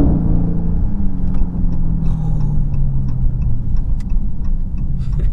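2021 Dodge Charger Scat Pack's 6.4-litre V8, heard from inside the cabin: the revs drop away at the start as the throttle is let off, and the engine note then falls slowly as the car coasts, over a steady low rumble.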